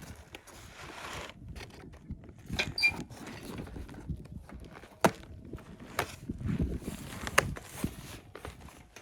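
Irregular sharp knocks and clicks over soft rustling, with a brief squeak about three seconds in.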